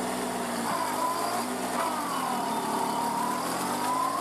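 Kubota B2441 compact tractor's three-cylinder diesel engine revving hard under load while stuck in deep mud. Its pitch rises about a second in, then sags and climbs back up again.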